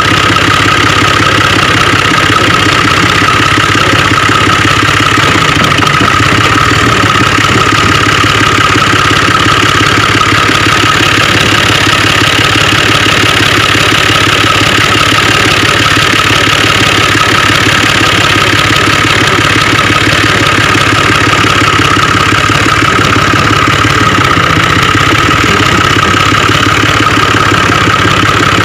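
An engine running steadily at an even speed, with no change in pitch or level.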